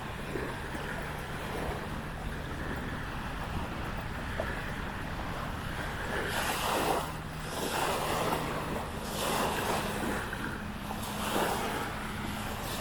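Small waves lapping on a lagoon shore, mixed with wind gusting over the microphone; the wash swells several times in the second half. A faint low steady hum lies underneath.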